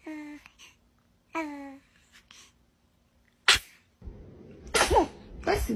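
Baby sneezing several times: two short, high-pitched sneezes in the first two seconds, a sharp sneeze about three and a half seconds in, then two more near the end.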